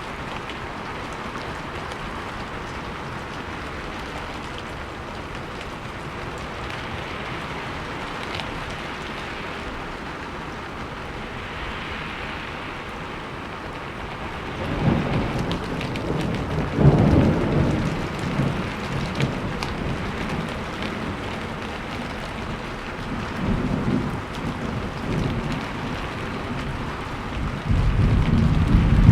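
Steady rain falling, with low rolls of thunder coming in about halfway through, the loudest a few seconds later, and more rumbles near the end.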